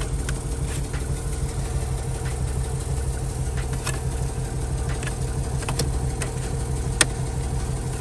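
1999 Chevy Tahoe's engine idling steadily, with no sound from the heater blower motor: the fan is not running on its low setting. A single sharp click about seven seconds in.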